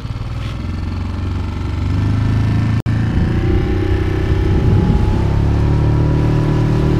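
Small outboard motor on an inflatable boat opened up to full throttle. It grows louder over the first two seconds, then runs hard and steady as the boat works to get up onto the plane, not pulling up straight away. There is one momentary break in the sound just before three seconds in.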